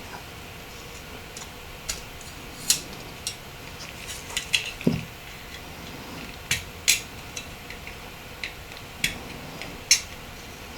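Scattered sharp clicks and taps of small metal and plastic parts of a Nokia 8910i's body shell being handled and prised apart, about a dozen, the loudest near three, seven and ten seconds in.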